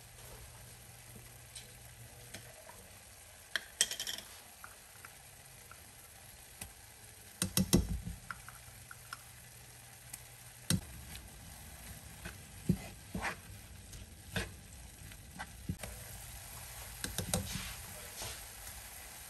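Minced beef and onions sizzling faintly in a frying pan, with scattered clicks and knocks of utensils and containers. The knocks come in a louder cluster about halfway through and again near the end.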